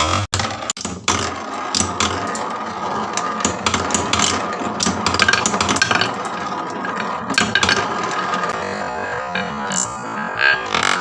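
Many marbles rolling and clacking down wooden marble-run tracks: a dense, continuous run of small wooden clicks and knocks.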